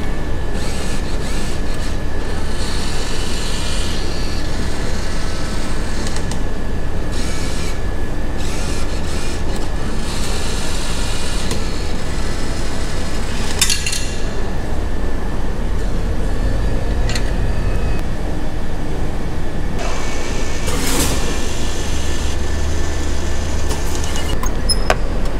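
Vending machine's banknote acceptor whirring in short spells as it draws in and checks the notes, with a sharp click partway through and a few clicks near the end, over a steady low rumble.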